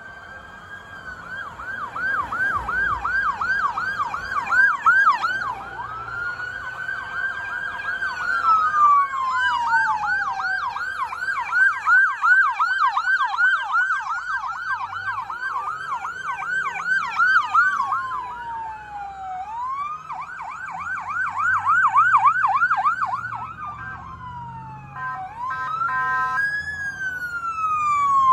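Electronic police car sirens on passing cruisers, switching between a slow rising-and-falling wail and a fast yelp of about four sweeps a second. Near the end a short steady tone and falling sweeps join in.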